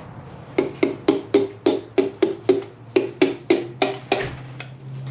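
A hammer tapping a piston crown about fourteen times in quick, even succession, roughly four taps a second, with a hollow, wood-block-like knock: the piston and its rings are being driven out of a ring compressor into the bore of a 1JZ-GTE block. The tapping stops after about four seconds, once the piston is in.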